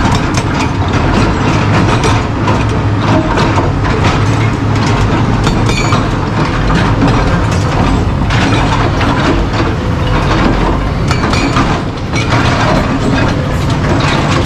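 Hydraulic rock breaker on a Kobelco excavator hammering stone in a dense, rapid clatter, over the steady rumble of the excavators' diesel engines.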